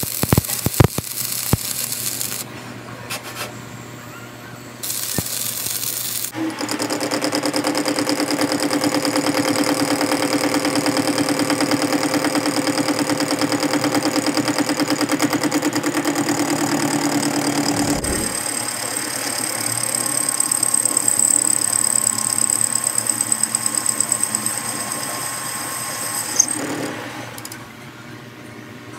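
Arc welding crackles and hisses for the first few seconds. Then a metal lathe runs steadily, its spindle and chuck spinning with a steady whine; the tone shifts about two-thirds of the way through. It winds down and stops near the end.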